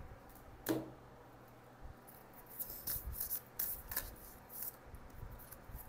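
Oracle cards being handled and shuffled: one light tap less than a second in, then a run of quick, soft rustling scrapes of card against card.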